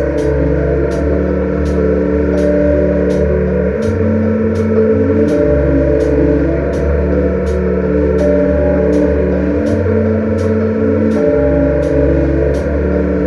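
A live band playing an instrumental passage: sustained bass and guitar notes under a steady cymbal tick, a little under two strokes a second.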